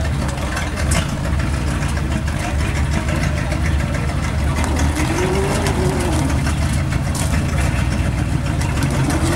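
Ford V8 flathead engine of a Bren (Universal) Carrier idling steadily.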